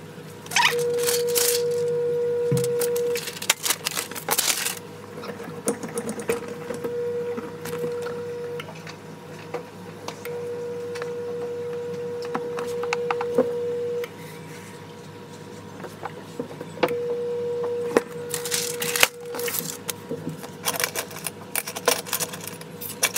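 Paper rustling and sliding, with light clicks and knocks, as sheets of transfer paper are handled at a heat press. Under it, a steady hum stops and starts several times.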